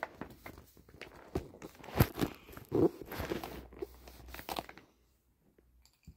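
Irregular rustling, scraping and a few sharp knocks as paper and pens are handled close to the microphone. The loudest knock comes about two seconds in, and the sounds die away near the end.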